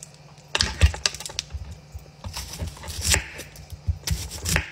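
An onion being peeled by hand and cut with a chef's knife on a thick wooden cutting board: irregular clicks and dull knocks, starting about half a second in.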